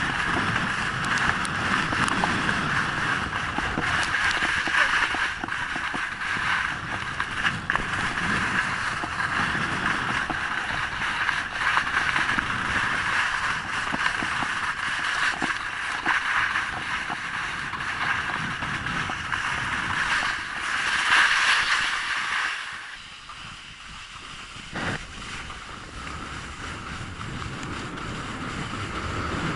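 Wind rushing over the microphone of a body-worn action camera at skiing speed, mixed with the hiss and scrape of skis carving on groomed snow. It eases off for a few seconds about three-quarters of the way through, then builds again.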